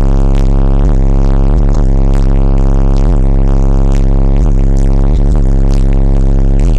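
Bass-heavy music played at extreme volume through car subwoofers driven by new amplifiers, the deep bass so loud that it overloads the recording into a distorted drone. This is bass pressure of the kind blamed for cracking the car's windshield.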